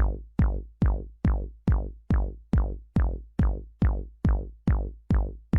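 Electronic music: a heavy drum-machine kick on every beat, about two and a third per second, each hit falling quickly in pitch into a deep bass note.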